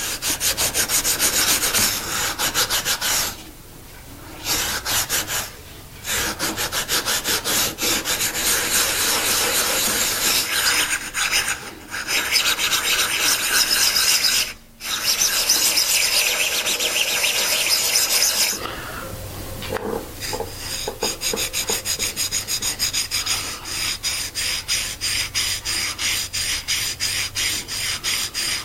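Hand lapping of an aluminium plate: a small scrap-aluminium block faced with 220-grit wet/dry sandpaper rubbed back and forth over the metal in quick, short strokes, with a few brief pauses. About two-thirds of the way through, the strokes turn quieter and more even.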